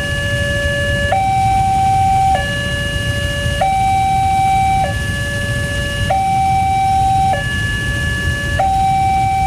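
Railway level-crossing warning siren of the electronic Alkmaar type, sounding continuously. It alternates between a lower and a higher tone, each held for about a second and a quarter.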